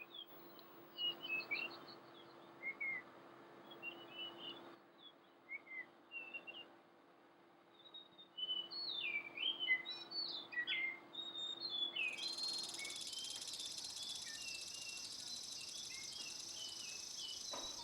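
Wild songbirds calling, with many short chirps and quick sweeping whistled notes from several birds. About two-thirds of the way through a steady high-pitched buzz joins them.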